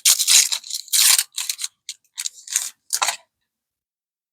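Packaging of a sealed trading-card box being torn open and handled: a quick run of short, scratchy crackles and rips that stops after about three seconds.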